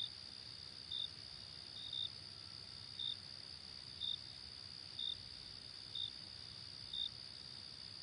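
Night ambience of crickets: a faint, steady high-pitched trill, with a short chirp repeating about once a second.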